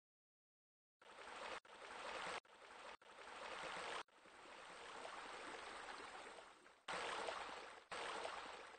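Running water, an even hiss that comes in about a second in and cuts in and out abruptly in about seven short pieces, the middle piece softer and longer, like spliced sound-effect clips.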